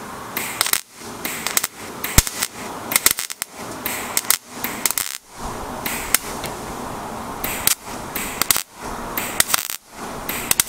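Millermatic 141 MIG welder tacking thin truck sheet metal: about ten short bursts of crackling arc with sharp pops, stopping and starting in quick succession. These are 'little taps', short tack pulses that fill a hole a bit at a time so the thin panel does not overheat and warp.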